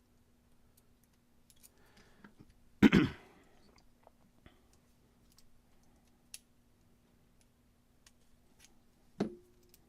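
Small metal lock parts clicking and ticking as a lock cylinder is handled and reassembled by hand. A loud sharp knock comes about three seconds in, and a second knock with a short ring comes near the end.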